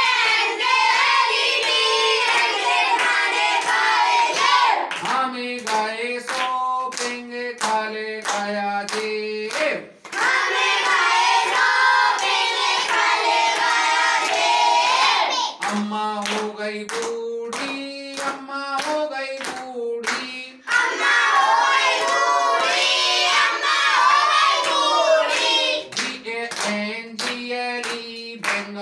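A man and a group of children chanting a rhyme in turns to steady hand clapping. His single voice alternates with the louder group of children's voices answering.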